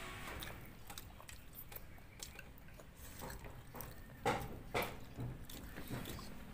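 People eating at a table: faint chewing and mouth sounds, with light clicks of spoons on plates. A few short, slightly louder sounds come about four and five seconds in.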